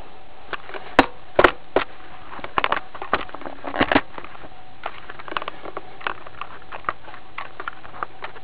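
Handling noise from a toy robot and its shield being picked up and moved by hand: irregular clicks and knocks of hard parts against each other and against fingers. The two sharpest knocks come about a second in, a small cluster follows around four seconds, then lighter scattered ticks.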